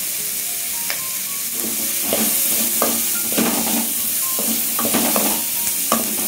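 Chopped vegetables sizzling in hot oil in a metal kadai while a wooden spatula stirs and scrapes them across the pan. The steady sizzle is joined about a second and a half in by repeated scraping strokes.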